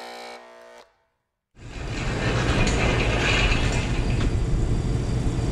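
A short electronic intro sting of held tones that cuts off in under a second. After a brief silence, a steady, loud low rumble of shop background noise sets in, with a few faint clicks.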